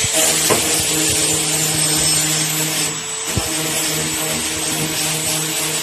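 A small motor running steadily with a hum and a hiss, with a couple of light knocks.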